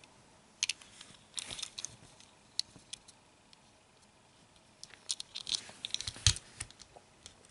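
Faint clicks and light rustles of a 1:64 diecast metal toy pickup being turned over in the fingers, then a cluster of small taps with one soft knock about six seconds in as it is set down on the table.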